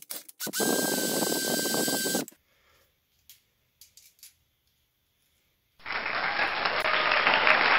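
Cordless drill running for about a second and a half with a steady whine as the bit cuts through a small metal part held in a vise, then a few small handling clicks. About six seconds in, a loud, even rushing noise starts and carries on.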